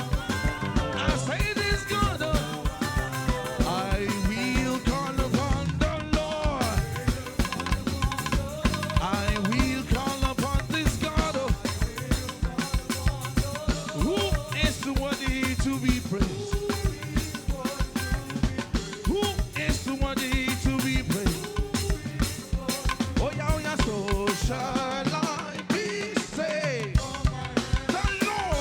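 Live band music with a drum kit playing a fast, steady beat under wavering melodic lines.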